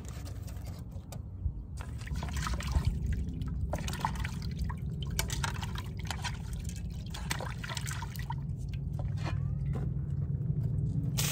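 Liquid trickling and dribbling, with many small splashes and ticks, over a steady low hum.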